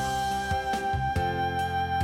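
Gentle instrumental background music: a held melody line over plucked notes.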